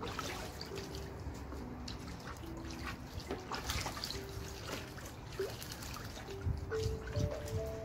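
Water splashing and dribbling in a shallow plastic tub as a white domestic duck bathes and shifts about in it. Soft background music with held notes that step up and down plays underneath.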